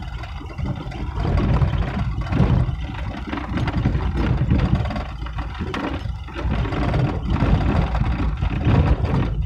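Car driving on a wet road, heard from inside the cabin: a steady low rumble of engine and tyres, uneven in loudness, with a few brief knocks.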